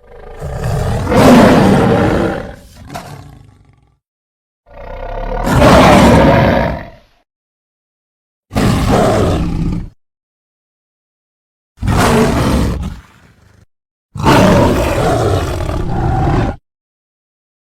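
Five separate big-cat roar sound effects, lion- and tiger-style roars used for an animated creature, each one to four seconds long and cut off into dead silence before the next. The first two are the longest and loudest.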